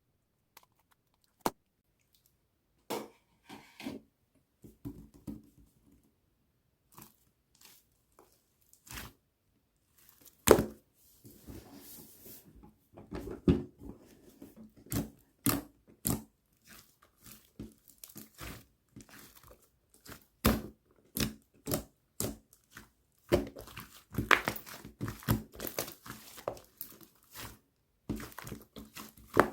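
Close-up handling noises: crinkling, crackling and tearing sounds with sharp taps and soft knocks. They start sparse and become a dense run of crackles and clicks from about ten seconds in.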